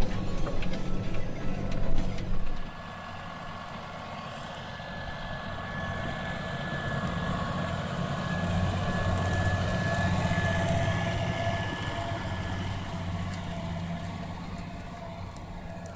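Claas Ares 836 tractor engine running under load while ploughing, growing louder as it comes closer, loudest past the middle, then fading as it moves away, with a thin steady whine over the engine. Before it, a louder, clicky sound cuts off abruptly about two and a half seconds in.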